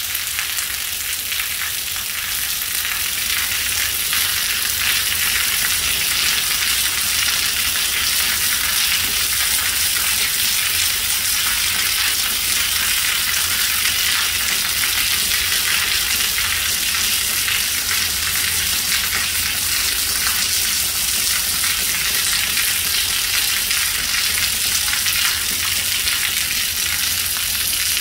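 Steady hiss of rain falling, with water running off the edge of a barrel tile roof.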